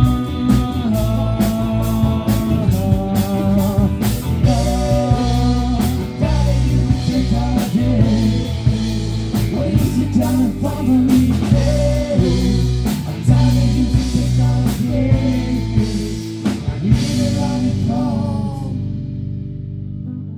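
Rock music with a drum kit and guitar, the drums and high end fading out near the end.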